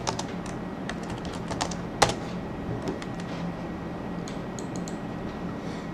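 Computer keyboard typing: a run of quick key clicks, dense at first and thinning out in the second half, with one sharper click about two seconds in.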